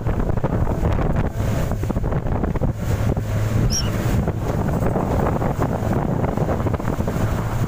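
Outboard motor of an inflatable speedboat running steadily under way, its low hum under heavy wind buffeting on the microphone and the rush and slap of water along the hull.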